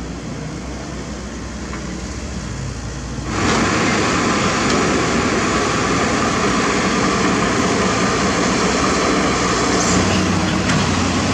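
Komatsu PC78US mini excavator's diesel engine running steadily. About three seconds in it becomes suddenly louder and harsher, and stays that way.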